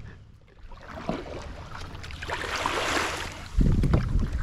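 Water splashing around a kayak, swelling and fading over a couple of seconds. Near the end comes a sudden low rumble of wind buffeting the microphone.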